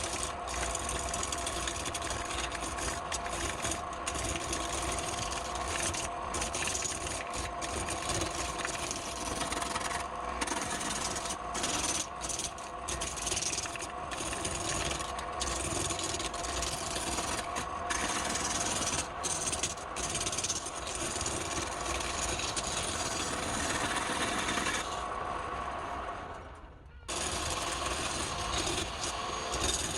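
Wood lathe running with a steady hum while a tool rubs and scrapes against the spinning wood, the rasping hiss breaking off briefly many times. The sound fades out for a couple of seconds about 25 seconds in, then starts again.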